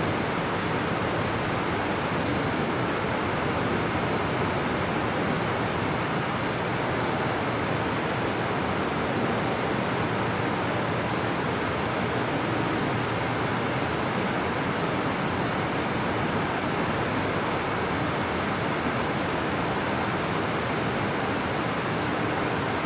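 Steady, even hiss of room tone, with nothing else standing out.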